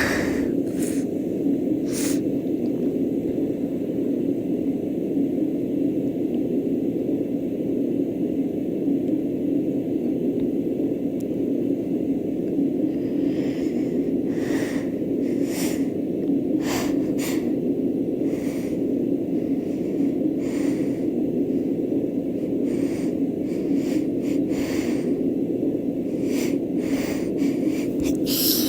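A sound machine's steady low rushing noise, over which come short nasal sniffs and breath hitches, a few at first and then a run of them in the second half: a woman working up to a sneeze.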